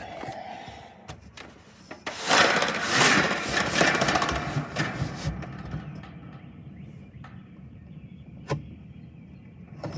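Thunder: a sudden crackling clap about two seconds in that rolls on as a rumble for about three seconds and fades, followed near the end by two sharp clicks.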